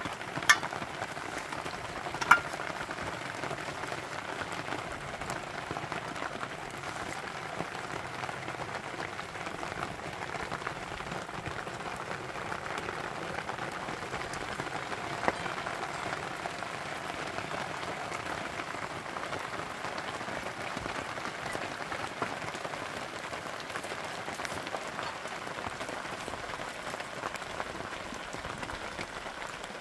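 Steady rain falling, an even hiss without a break. A few sharp knocks stand out: two loud ones in the first few seconds and a smaller one midway.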